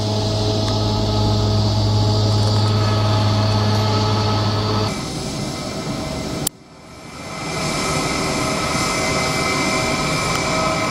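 Jet airliner engines at taxi idle: a steady deep hum under a whine, first from a Swiss Boeing 777. The deep hum drops out about five seconds in. After a sudden cut the sound fades back in as an Air Serbia Airbus A319 taxis past, its whine higher.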